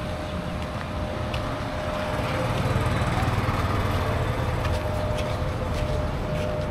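City street traffic: a motor vehicle's engine rumble swells up about two seconds in and eases off again, over a steady thin tone.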